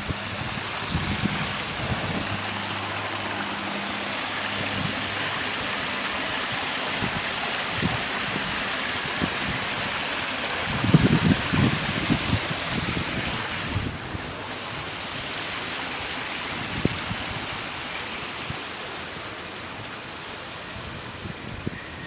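Water from a small rock waterfall splashing and running over the stones of a pond stream, a steady rush that drops a little in level about two-thirds of the way through.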